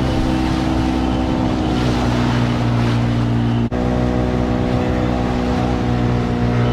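Outboard motor running steadily on a small inflatable boat under way, with wind and water noise. There is a momentary gap about halfway through.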